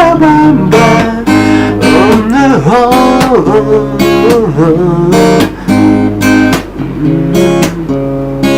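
Acoustic guitar strummed in a steady rhythm of chords, an instrumental break between sung lines of a love song.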